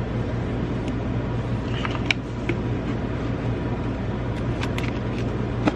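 A steady low hum, with a few light clicks of oracle cards being handled about two seconds in and again near the end.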